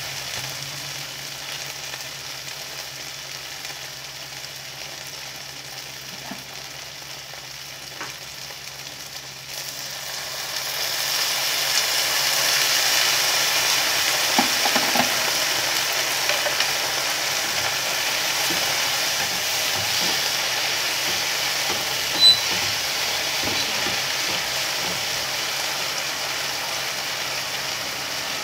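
Eggplant and peppers sizzling in a frying pan over a gas flame. The sizzle grows clearly louder about ten seconds in and then holds steady, with one short high blip about two-thirds of the way through.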